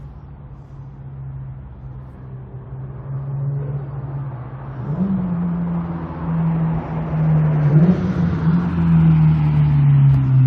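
Subaru WRX STI's turbocharged EJ20 flat-four through a full-titanium competition exhaust, the car driving past: a low, even exhaust note that grows louder as it comes nearer. The note steps up in pitch twice, about halfway through and again later, as the driver shifts down.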